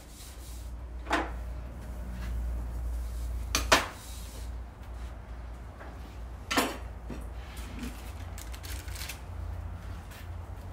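A few sharp clatters of kitchen items being handled and set down on a tabletop: one about a second in, a quick double knock near four seconds, and another past six seconds, over a low steady rumble.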